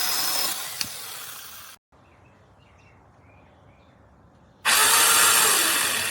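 Small cordless electric chainsaw running, with a sharp click about a second in as it winds down. A quieter stretch with a few faint chirps follows, then the saw runs loud again near the end and starts to fade.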